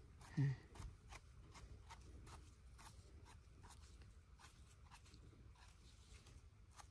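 Faint, scattered crunches and scrapes as the firm stems of freshly picked wild bolete mushrooms are cut and trimmed, with a short murmur from a woman's voice about half a second in.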